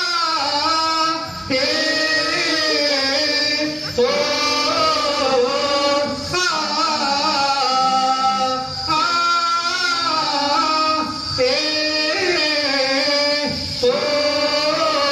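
A group of men singing a song together into corded microphones, amplified through a PA system, with long held notes in the melody.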